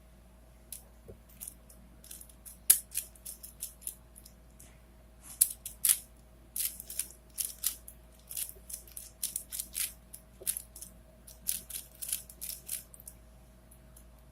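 Plastic layers of a 4x4x4 Rubik's cube (Rubik's Revenge) clicking and clacking as they are turned, in quick irregular runs that start sparse and grow busiest past the middle.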